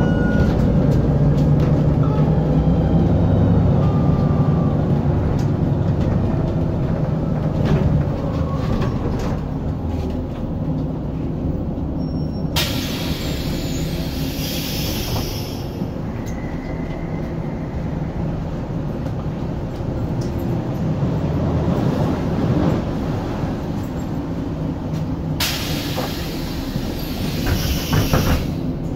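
Volvo 7000A articulated city bus under way: its Volvo D7C six-cylinder diesel running with a faint whine from the ZF 5HP592 automatic gearbox, louder for the first several seconds and then easing. Two bursts of compressed-air hiss, a few seconds each, come about halfway through and near the end.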